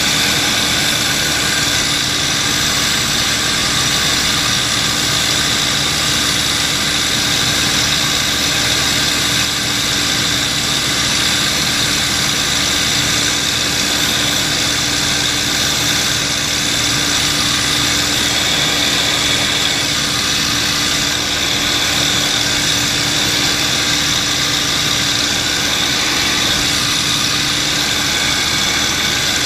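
P-51 Mustang's V-12 piston engine running at a steady cruise setting, heard from inside the cockpit with propeller and slipstream noise, loud and even with no change in pitch.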